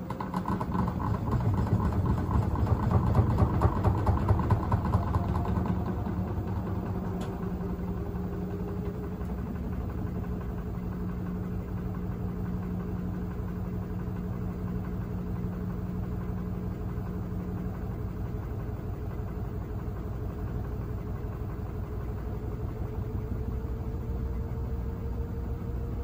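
Kenmore 796.41392.511 front-load washing machine spinning a heavy, unbalanced load. For the first few seconds it is loud, with a rhythmic knocking from the off-balance drum. It then settles into a steady whir whose pitch slowly rises as the drum speeds up toward its 1100 RPM final spin.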